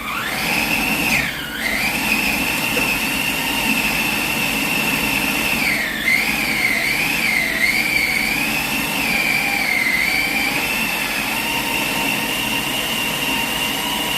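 Electric kitchen blender running at high speed with a steady motor whine, blending a thick nut-and-fruit paste. It spins up at the start, and its pitch dips about a second and a half in and wavers several times around the middle as the thick mixture loads the motor.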